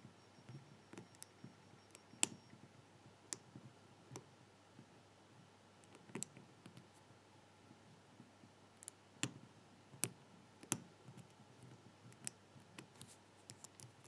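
Lock pick and tension wrench working the pins of an all-brass American pin-tumbler padlock: faint, irregular metallic clicks and scrapes, with a few sharper clicks among them.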